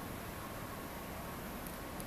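Steady background hiss of night-time ambience with no firework bursts, and a faint tick near the end.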